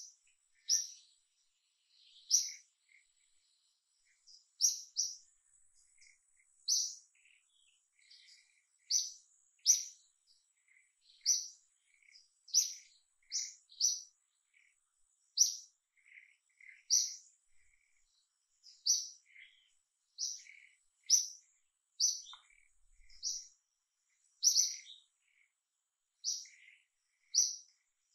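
A bird chirping over and over: short, high single notes about once a second, with fainter lower notes between them.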